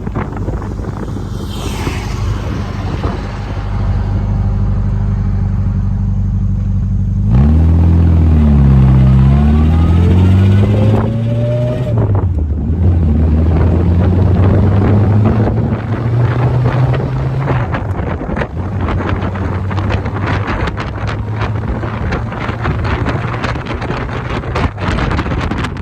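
1959 Austin-Healey Sprite's small four-cylinder engine pulling under way, its pitch climbing and dropping about a third of the way in as it accelerates and shifts. Wind buffets the open microphone, taking over in the second half.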